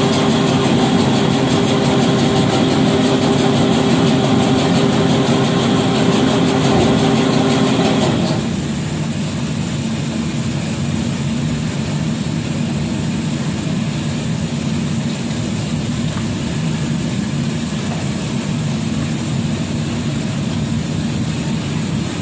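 Motor of a meatball-making (bakso/basreng) machine running steadily. About eight seconds in, a humming tone cuts out and the sound drops a little, continuing as a lower, even hum.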